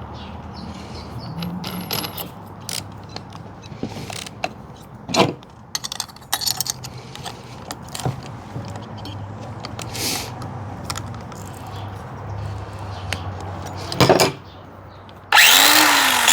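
Metallic clicks, knocks and rattles of a cordless angle grinder being handled while a grinding wheel is fitted, then the grinder switched on and running loudly near the end.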